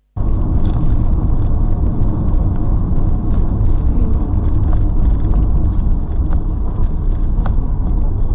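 Steady heavy low rumble of a car driving, road and engine noise, with a few faint clicks. It starts abruptly just after a stretch of silence.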